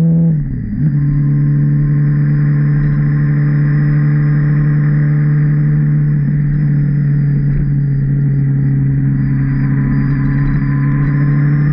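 Honda CB650R's inline-four engine running at steady revs under way. About half a second in, the revs dip briefly, as at a gear change, then settle slightly lower and hold steady.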